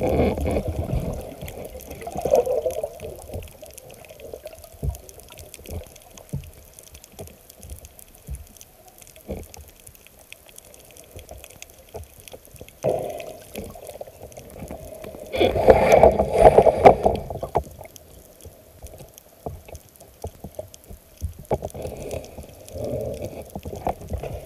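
Muffled water sloshing and bubbling around a camera held underwater, coming in irregular surges, the loudest about sixteen seconds in.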